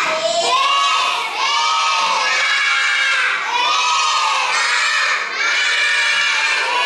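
A class of young children calling out together in loud unison, in drawn-out phrases of about a second each, one after another.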